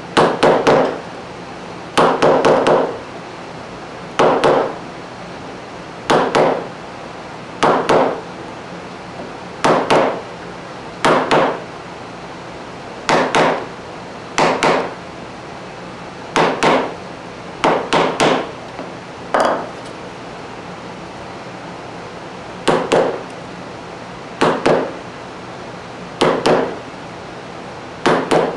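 Mallet striking a chisel, chopping dovetail waste out of curly maple: sharp raps in short groups of two or three, a group every second or two.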